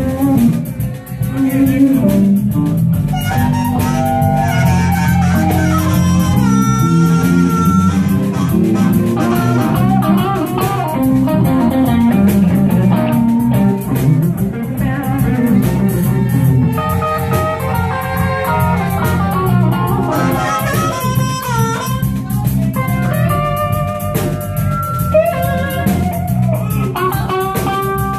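Live blues-rock band playing: electric guitars over bass and drums, with a harmonica. Short lead lines with bent notes take turns over the steady backing.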